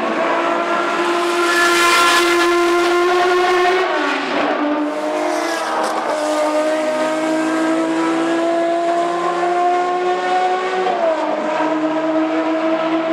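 BMW M1 Procar's M88/1 straight-six racing engine under hard acceleration, its pitch climbing steadily through each gear. Upshifts about four seconds in and again near the end drop the pitch before it climbs once more.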